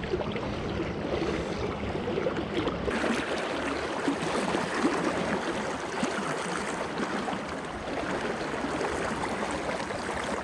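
Shallow, fast river current rushing steadily over a rocky riffle, heard close to the water's surface. The rush grows brighter and fuller about three seconds in.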